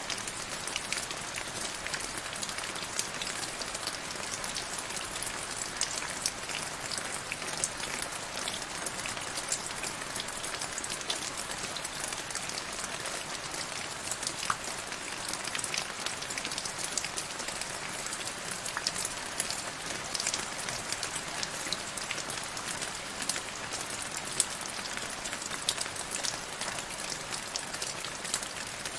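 Steady rain falling into a shallow puddle on grass: a dense, even patter of drops, with a few louder individual drops now and then.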